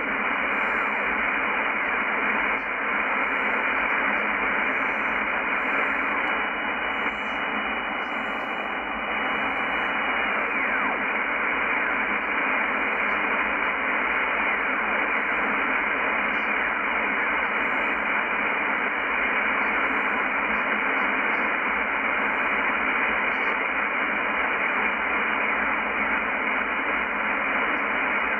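Shortwave band noise: steady static hiss from a Yaesu FTdx10 receiver in upper-sideband mode as it is tuned across a quiet stretch of the 11 MHz band. The hiss is cut off sharply by the sideband filter, and a faint steady tone comes through for a few seconds near a third of the way in.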